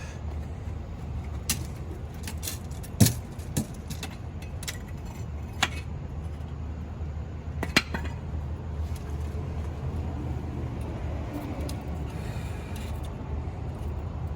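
Scattered sharp metal clinks and knocks, a second or two apart, from tongs, crucible and ingot molds being handled while molten copper is poured, over a steady low rumble.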